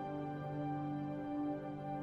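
New-age ambient music of long, steady held tones layered over one another, with no beat.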